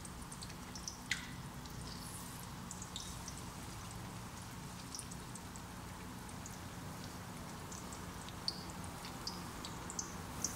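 Battered stuffed tofu deep-frying in hot oil in a wok: a steady faint sizzle with scattered small pops and crackles, a few sharper ones about a second in and near the end.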